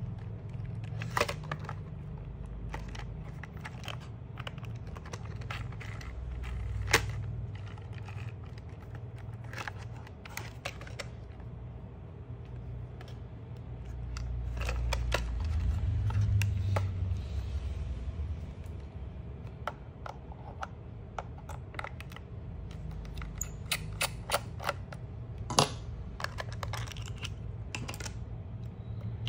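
Scattered light clicks and taps of hard plastic as a toy RC drift car's body, wheels and chassis are handled and turned over in the hands, with a few sharper knocks, over a steady low rumble.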